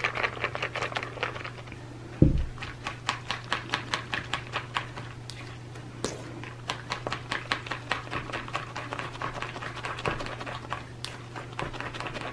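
Fork beating soap flakes into hydrogen peroxide in a plastic mixing bowl: fast, uneven clicking and tapping of the fork against the bowl, several strokes a second, with one heavier thud about two seconds in.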